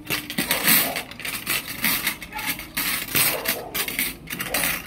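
Small steel cockfighting gaffs (tari) clinking and rattling against one another in quick, irregular clicks as they are picked up and sorted by hand.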